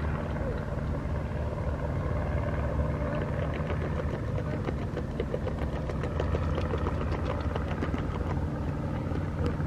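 Beavers chewing leaves off a branch in the water: a run of quick, crisp crunching clicks that thickens from about three seconds in, over a steady low rumble.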